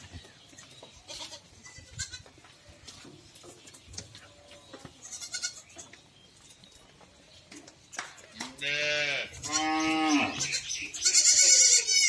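Goats bleating: two wavering bleats a second apart about two thirds of the way in, then a louder, higher-pitched bleat near the end. The first part is quiet apart from small scattered sounds.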